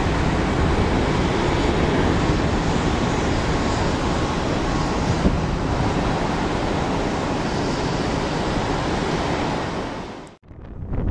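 Boeing 777 jet engines heard from the ground as the airliner climbs away after takeoff: a steady deep rumble with a hiss over it. It fades out suddenly about ten seconds in.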